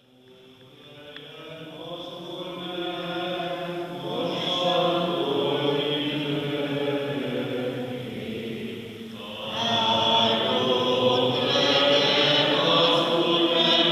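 Voices singing Eastern-rite liturgical chant. The chant fades in at the start, dips briefly a little after halfway, then goes on louder.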